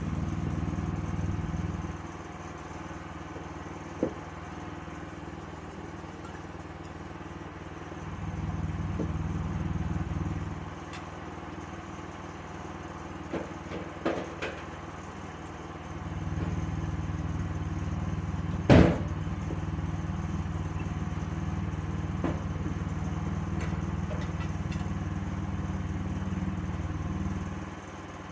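Sawmill engine running steadily, growing louder and deeper in three stretches, the longest about ten seconds. A few knocks and one loud sharp clack come partway through.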